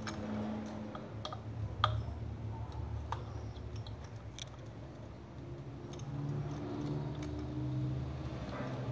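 Irregular sharp clicks and taps from hands working on the Mazda 323's ignition coils and their plastic connectors, over a steady low hum.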